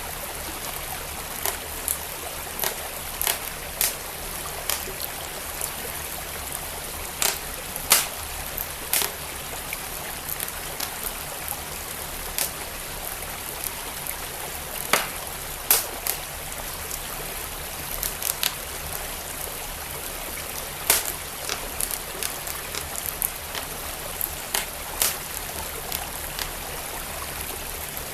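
Wood fire crackling with irregular sharp pops, the loudest about 8, 15 and 21 seconds in, over the steady rush of flowing stream water.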